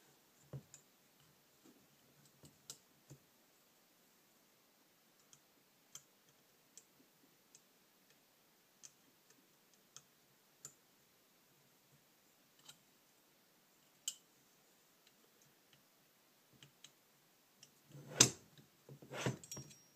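Scattered light clicks and taps as a hex key and motorcycle carburetor parts are handled, one every second or so, with a louder clatter of clicks near the end.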